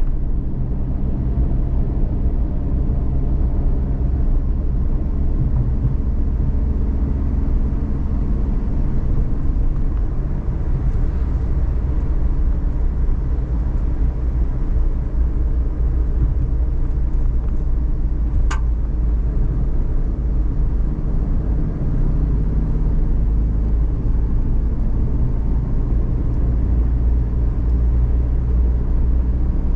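Suzuki Every DA17V kei van driving, heard from inside the cabin: a steady engine and road rumble from its 660 cc three-cylinder. A single short click sounds about two-thirds of the way through.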